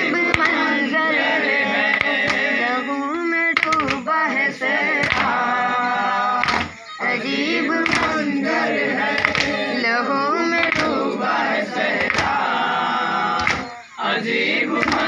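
A group of men chanting a noha, a Shia lament for Hussain, in unison, with rhythmic chest-beating (matam) thumps about three every two seconds.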